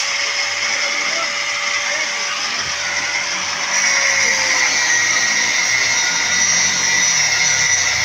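Handheld angle grinder with a cutting disc running and cutting through steel rebar: a steady high whine with a grinding hiss. About halfway through it gets louder and dips slightly in pitch.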